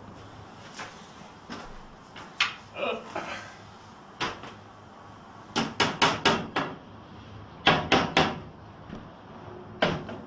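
Sharp knocks and clunks of easel parts and dowels being handled and fitted. There is a quick run of about five knocks just past the middle, three more shortly after, and a single one near the end.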